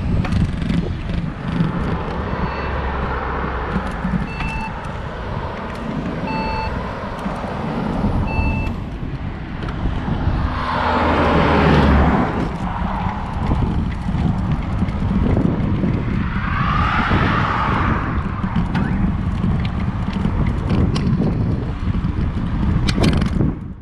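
Wind buffeting the microphone and road noise during a bicycle ride beside traffic, with cars passing about halfway through and again about three quarters through. In the first third a short electronic beep sounds four times, about two seconds apart.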